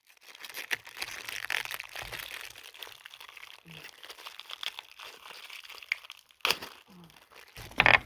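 Plastic packaging crinkling and rustling as it is handled and opened to get at a new ATV steering bushing, with a couple of louder crackles near the end.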